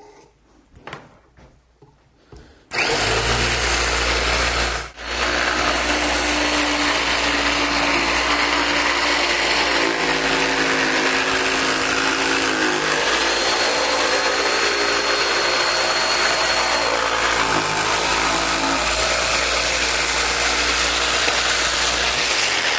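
Electric scroll saw switched on about three seconds in and running loud and steady while cutting wood, dipping briefly near five seconds. Its motor hum shifts in pitch a few times as the blade takes load.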